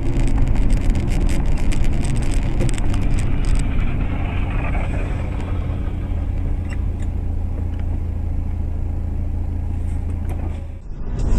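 Car engine and road noise heard from inside the car on a dashcam, a steady low drone. For the first few seconds a rapid run of sharp clicks and crackles rides over it. The sound cuts off suddenly near the end.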